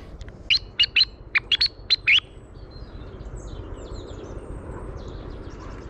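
A quick run of about seven loud, short, sharp chip calls in under two seconds, then fainter high chirps.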